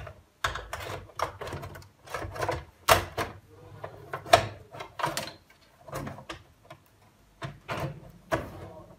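Siemens dishwasher's plastic control panel being handled and fitted onto the top of the door: irregular plastic clicks, knocks and rattles.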